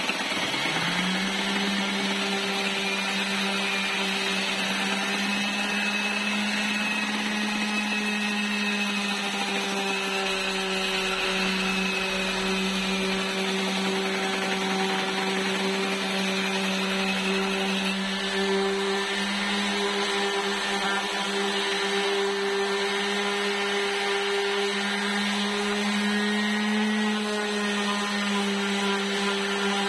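Corded electric random orbital sander switching on and winding up to speed, then running steadily with a constant hum while sanding a flat wooden panel.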